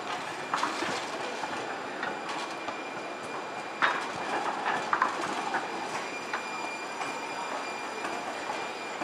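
Siemens S200 SF light rail vehicle rolling slowly past, its wheels giving several sharp clacks over the rail joints and switches, the loudest about four seconds in, over a steady rolling noise.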